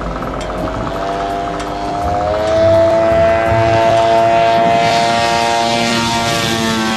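The Spoonbill UAV's propeller engine throttling up for the takeoff run, rising in pitch over the first couple of seconds, then holding a steady, loud high drone as the aircraft lifts off.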